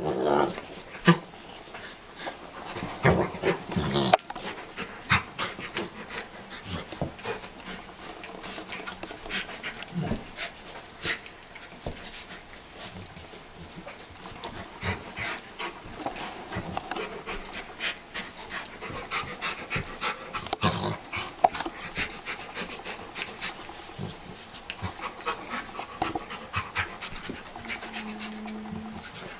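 A Rottweiler and a beagle puppy play-wrestling: panting, with many short clicks and scuffles throughout.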